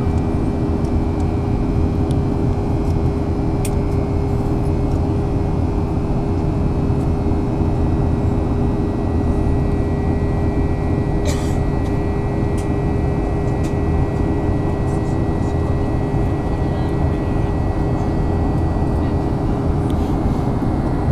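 Steady cabin drone of a Boeing 737-800 in flight: the hum of its CFM56-7B turbofan engines, carrying a few steady tones, over the rush of airflow past the fuselage.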